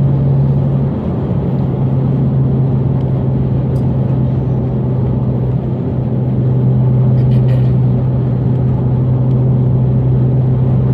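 Cabin sound of a Dodge Charger's V6 cruising at steady highway speed: a constant low engine drone over road and tyre noise.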